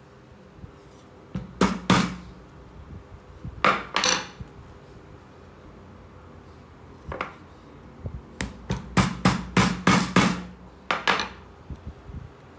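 Small metal parts knocking and clinking on a hard surface as they are handled: two pairs of knocks, a single one, then a quick run of about a dozen near the end.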